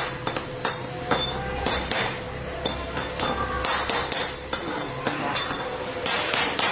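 Repeated metal-on-metal hammer strikes, a few a second with a ringing clink, over a steady faint hum.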